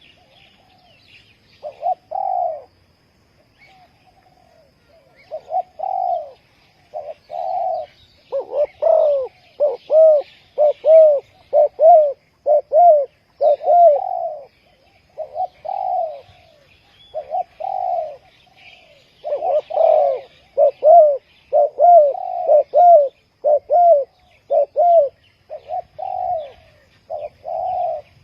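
Spotted doves cooing, repeated short coos in phrases that come in quick runs from about a third of the way in. Faint higher chirping sits underneath.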